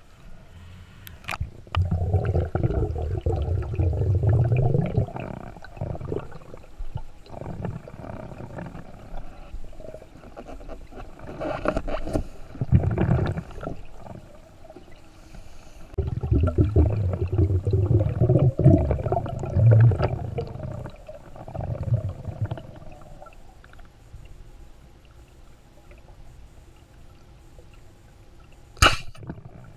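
Underwater water noise against the camera in several long rumbling bursts, then a single sharp crack near the end as the speargun fires its shaft.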